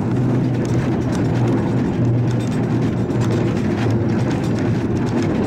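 A tram running along street tracks, heard from inside the car: a steady low hum with rolling rumble from the wheels on the rails.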